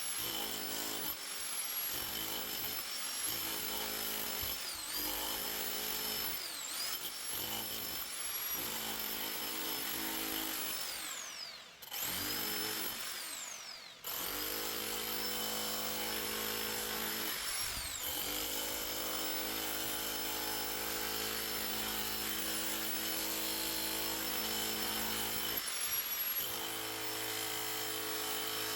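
Electric power tool motor whining in repeated trigger bursts, short at first and then in longer runs, winding down briefly between them.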